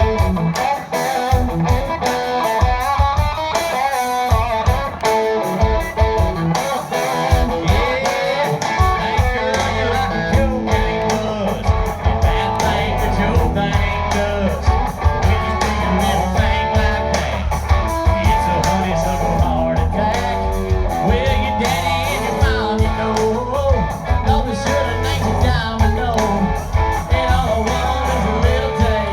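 Live band playing a country-rock song: electric guitar over bass and drums, with the bass and drums filling in fully about nine seconds in.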